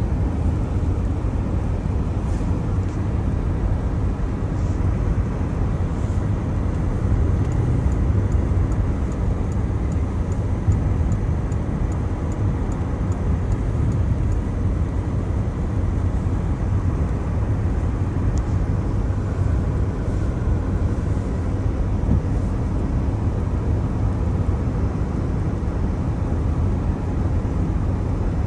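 Car driving on a wet road in the rain: a steady low rumble of tyres and road noise.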